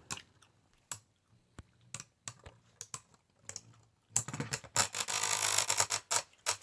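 Light plastic clicks and taps of Beyblade tops and stadium, a few scattered knocks at first, then about two seconds of quick rattling from about four seconds in.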